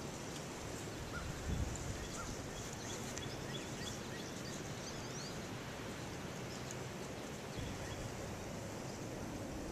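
Faint outdoor ambience: a steady low rush of background noise with a few small, high bird chirps scattered through it.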